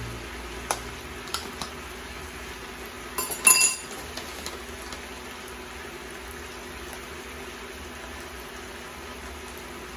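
A few light clinks of a spoon and seasoning containers, the loudest cluster about three and a half seconds in, over a steady low hum.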